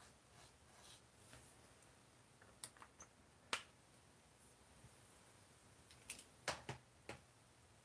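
Faint scratching of a marker tip on paper, then sharp plastic clicks from marker pens being handled: about three a little before the middle and four more near the end.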